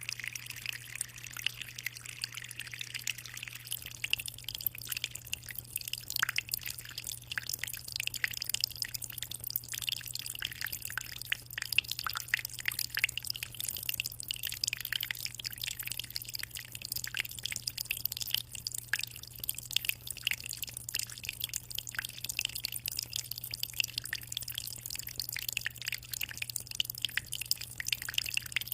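Aquarium water trickling and splashing in a steady stream of small drips and plinks, over a steady low hum.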